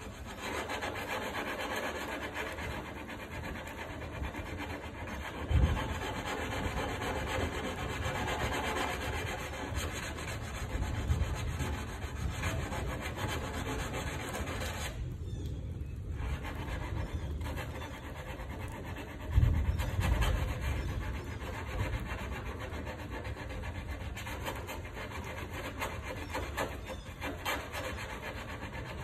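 Sandpaper rubbing by hand over the cut edges of a hole in a Cessna 170A's aluminium leading-edge wing skin, polishing them smooth so they will not crack. The rubbing is steady, with a short pause a little past the middle and two louder thumps.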